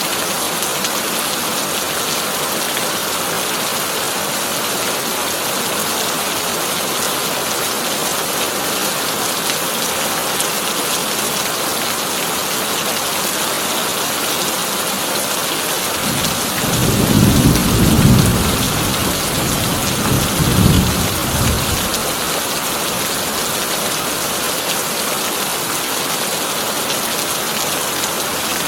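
Heavy rain drumming steadily on a corrugated tin roof. About halfway through, a long low rumble of thunder swells in twice over several seconds and fades.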